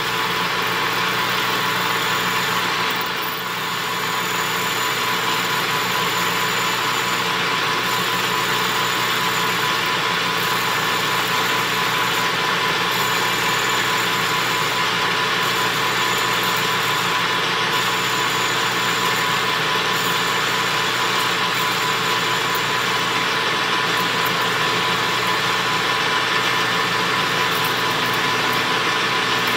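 Small metal lathe running steadily, its motor and gearing humming and whining, while a parting tool is fed slowly into the spinning bar stock by the cross-slide handwheel to cut the part off.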